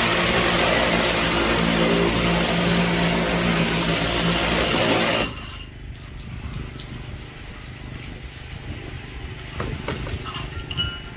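Gas pressure washer running, its engine hum under the hiss of the spray. About five seconds in it stops abruptly, leaving a much quieter background with a few faint clicks.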